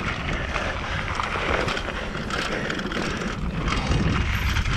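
Mountain bike rolling down a dry dirt trail: steady tyre noise on the dirt with a continual clatter of small rattles and knocks from the bike.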